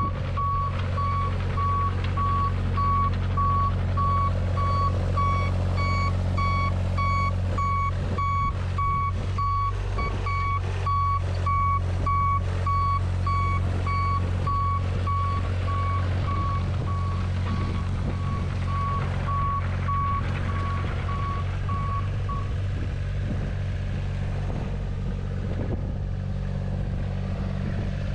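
JCB 8018 mini excavator's diesel engine running steadily, with its motion alarm beeping over it in quick repeated beeps that stop about 22 seconds in. A run of regular knocks comes between about 8 and 14 seconds.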